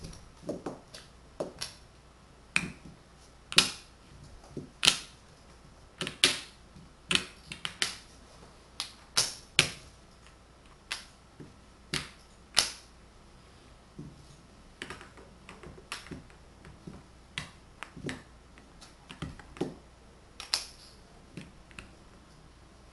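Magnetic wooden building blocks clicking and knocking against one another as they are handled and snapped into place. The clicks are irregular, some sharp and loud, others faint, and come in small clusters with short pauses between.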